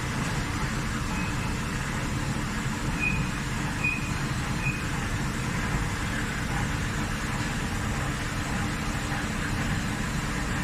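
Dörries VCE 125/160 vertical turret lathe running: a steady low mechanical rumble. Three short high squeaks or beeps come about three to five seconds in.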